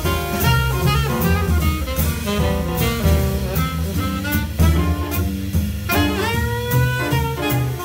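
Jazz quartet playing live: a saxophone melody over grand piano, plucked double bass and a drum kit with regular cymbal strokes.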